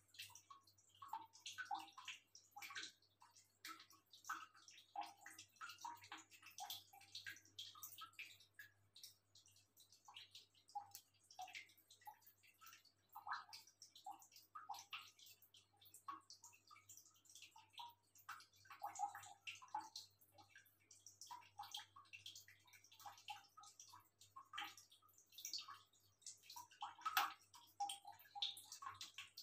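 A cat lapping water from a bowl: faint, quick, irregular wet clicks of the tongue, going on in runs with short pauses, over a low steady hum.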